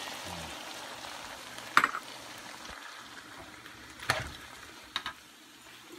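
Pork belly pieces sizzling in hot fat in a frying pan just after fish sauce is poured in, the sizzle dying down gradually. Metal tongs clatter against the pan a few times, loudest just under two seconds in.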